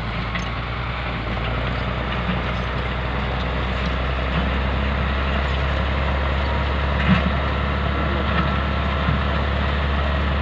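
Crawler bulldozer's diesel engine running steadily as the dozer pushes and levels earth, with a single brief knock about seven seconds in.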